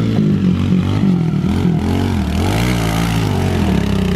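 Small dirt bike engine revving as the bike rides along the trail, its pitch rising and falling several times with the throttle.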